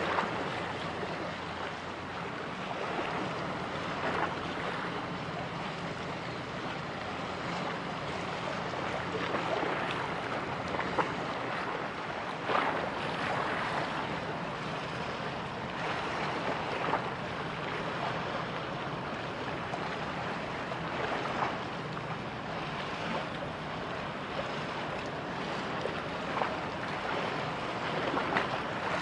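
Wind buffeting the microphone over the wash of choppy sea water, with short splashes now and then.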